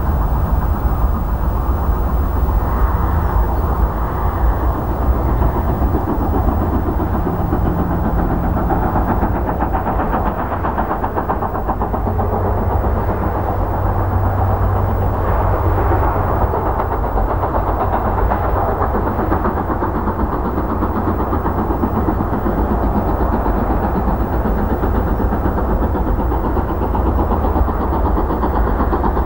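Steam locomotive hauling a train and working hard as it approaches, with a steady heavy rumble of exhaust and running noise.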